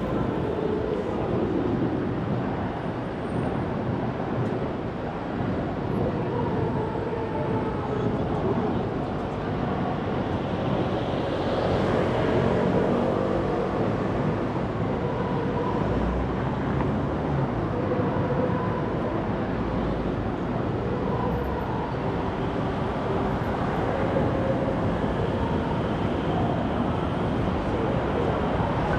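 Steady traffic noise on a busy city street: running vehicle engines and tyre noise, with a brief swell as a vehicle passes about twelve seconds in.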